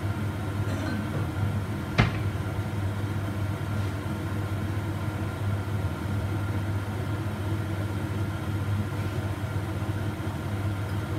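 A steady low hum, with one sharp click about two seconds in.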